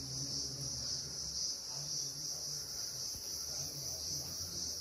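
Steady high-pitched chorus of insects, crickets by its sound, running on without a break over a low rumble.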